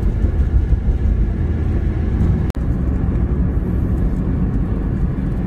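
Steady low rumble of a car's engine and tyres heard from inside the cabin while driving on a motorway. The sound cuts out for an instant about halfway through.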